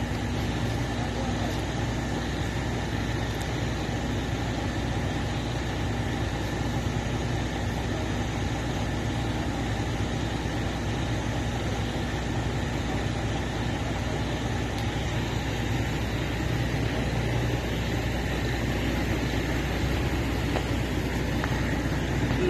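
Engines of heavy machinery running steadily at a low, even drone, with no sharp knocks or changes.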